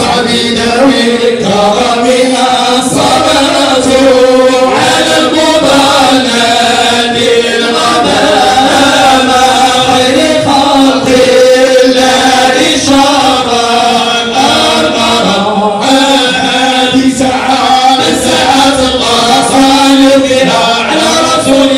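A group of men chanting together with no instruments, a Sufi devotional chant in praise of the Prophet Muhammad. Long held notes slide slowly from pitch to pitch without a break.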